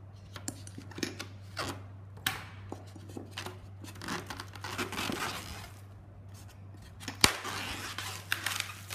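Scissors snipping through clear plastic film wrapped over a plastic tray, then the film torn and pulled off with crinkling. There is a sharp click about seven seconds in.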